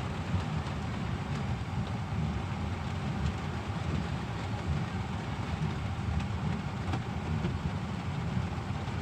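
Steady low rumble of a car driving, heard from inside the cabin, with an even hiss of heavy rain on the car.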